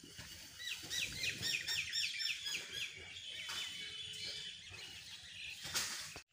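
A bird calling: a quick run of sharp chirps, each falling in pitch, for about two seconds, then a shorter chattering trill.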